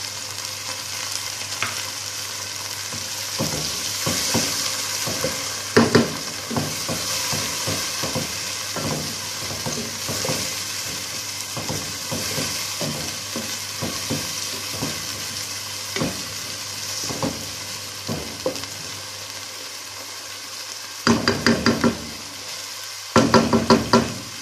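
Diced tomatoes sizzling in hot oil with sautéed onion, garlic and ginger, stirred with a wooden spoon that scrapes and knocks against the nonstick pot. Near the end come two quick runs of rapid, louder knocks as the spoon is tapped on the pot.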